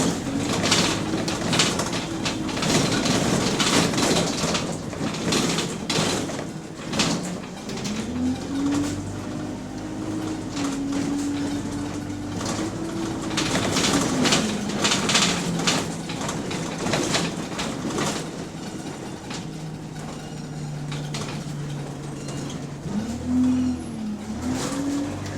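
Diesel engine of bus SE152 heard from on board, revving up as the bus pulls away, holding, then dropping back as it slows, with a lower steady running stretch and another short rev near the end. Rattles and road noise run under it. The bus has an exhaust leak again, which adds to the engine's loudness.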